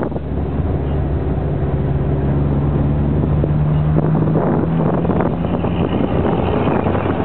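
Road traffic heard from inside a moving car: a steady low engine drone, with wind buffeting the microphone. A faint high whine comes in near the end.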